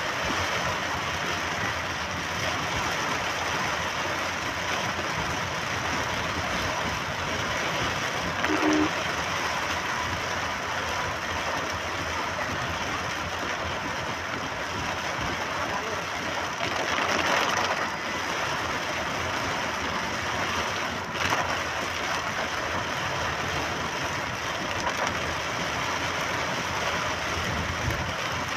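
Steady road noise heard from inside a car driving in rain: tyres hissing on wet tarmac, with rain on the windscreen and the engine underneath.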